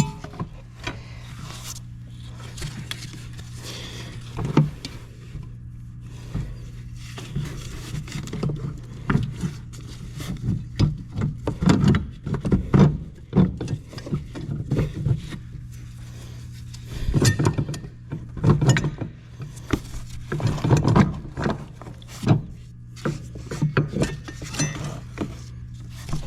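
Irregular knocks and clatters of metal parts and hand tools being handled while a brake booster is fitted back into place, in bunches of several strikes, over a steady low hum.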